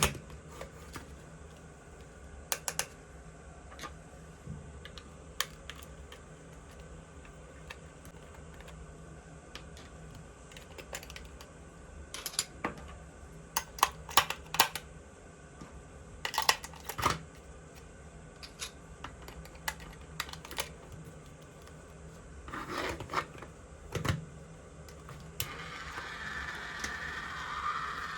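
Light clicks and taps of small plastic toy parts and packaging being handled, some single, some in quick clusters. About three seconds before the end a steady hissing noise sets in.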